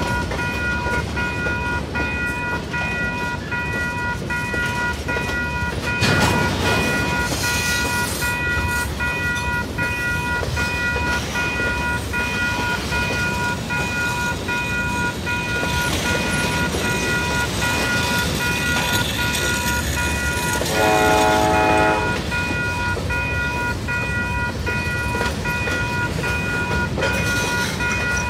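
Freight train of covered hopper cars rolling through a grade crossing, wheels rumbling and clattering on the rails, while the crossing signal bell rings steadily. A horn sounds for about a second and a half a little past twenty seconds in.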